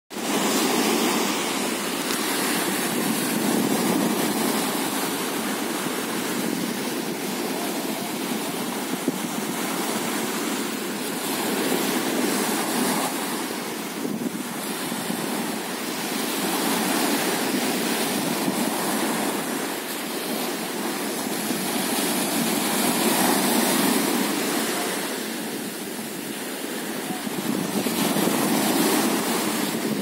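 Small sea waves breaking and washing up a sandy beach, the surf swelling and easing every several seconds.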